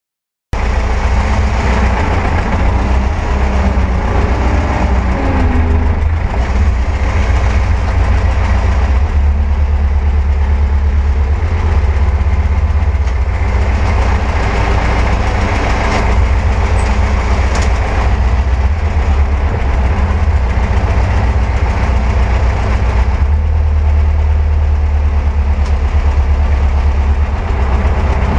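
T-40 tractor's air-cooled four-cylinder diesel running steadily at low revs, heard from inside the cab, with the NSh-50 hydraulic gear pump working the front loader off it.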